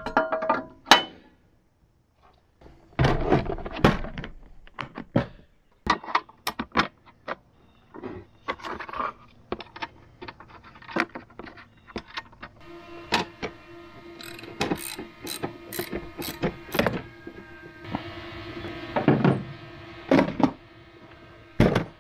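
Irregular knocks, clicks and clanks of a steel toolbox mounting bracket and plastic toolbox being handled and fitted to a tractor loader arm. From a little past halfway a steady held tone sounds underneath.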